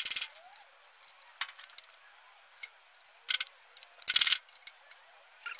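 Metal clinks and rattles of hand tools and loose engine parts, in scattered short knocks with a longer rattle about four seconds in, during work on a flathead engine's valve gear.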